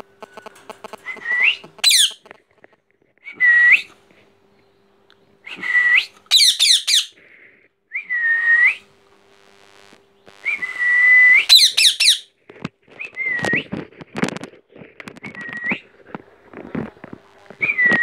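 Young rose-ringed parakeet whistling and calling: short whistled notes repeated every couple of seconds, several breaking into a sharp rising squeal. Clicks and rustles follow in the last few seconds.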